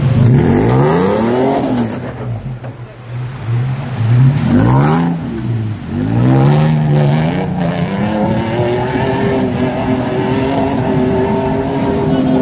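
Toyota FJ Cruiser's V6 engine revving as it drives into a river ford, its pitch rising and falling twice, with water splashing. In the second half an off-road vehicle engine holds steady revs.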